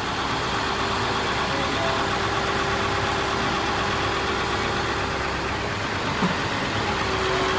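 An engine running steadily at idle with a constant hum, and a single brief knock about six seconds in.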